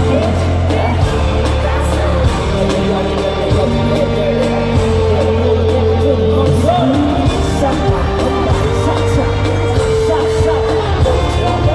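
Loud live hip-hop music over a concert PA: long held bass notes and a steady synth line, with a rapped and sung vocal on top.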